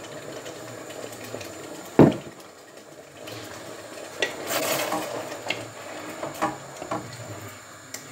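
A spoon stirring sauce in a large stainless steel stockpot, clinking against the metal several times, with one loud knock about two seconds in.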